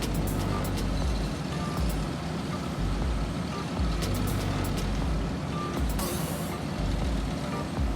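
Heavy diesel construction machinery running steadily, with a reversing alarm sounding a few short beeps.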